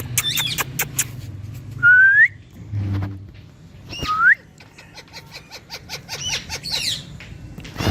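Green pet parrots chirping and whistling: sharp chirps, then two rising whistles about two and four seconds in, the first the loudest, and a quick run of short chirps near the end.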